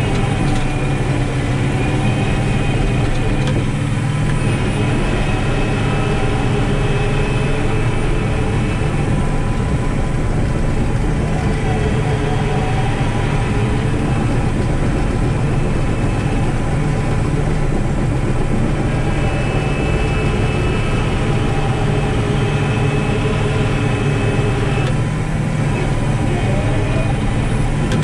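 Caterpillar 973C track loader's six-cylinder diesel engine running steadily as the machine drives and pushes across the ground, heard from inside the cab.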